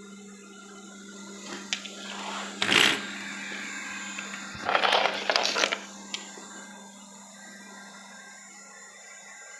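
Robot vacuum mop running with a steady motor hum, with two louder noisy bursts about three and five seconds in.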